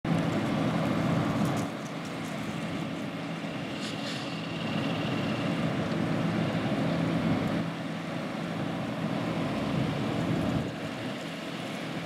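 Diesel engines of farm tractors and silage trucks running, heard from a distance as a steady engine drone.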